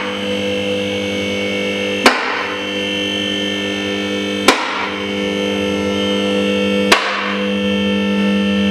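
Electric car lift raising a car body, its motor humming steadily, with a sharp metallic clack from the lift about every two and a half seconds.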